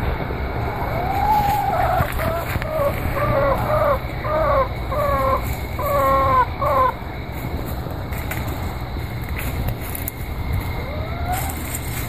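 Domestic hen calling: one drawn-out call about a second in, then a run of about ten short, arched calls, roughly two a second, and a single rising call near the end. A steady low rumble runs underneath.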